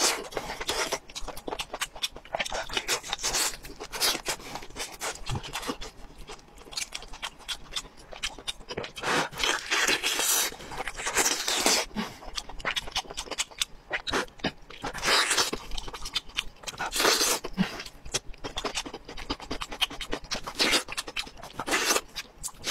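Close-miked eating sounds: wet chewing and lip-smacking on braised meat, with the meat being torn apart by hand, heard as quick irregular clicks and short noisy bursts.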